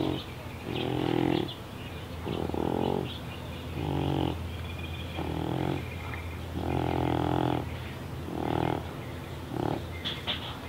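Cat snoring loudly while awake: about eight pitched, pig-like breaths, one roughly every second and a half. The noise comes from her breathing problems.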